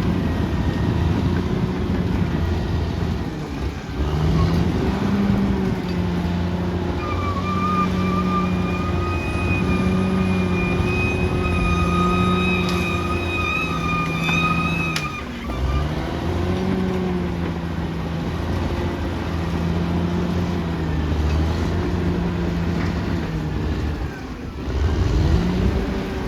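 Caterpillar D6R XL bulldozer's diesel engine running under load, its pitch rising and falling as it works and dipping briefly three times. A high steady whine joins it for several seconds mid-way.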